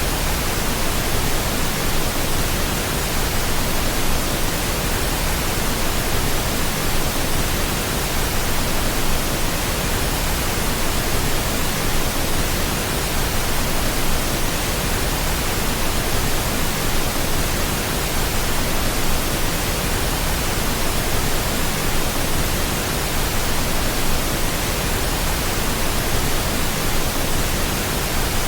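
Steady pink noise: an even, unbroken hiss spread across the whole range, with no changes or events.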